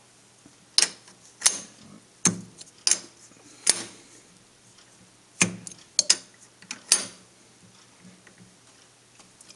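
Lathe tool post and boring-tool holder being loosened and repositioned by hand, giving about ten sharp clicks and knocks at irregular intervals, most of them in the first seven seconds.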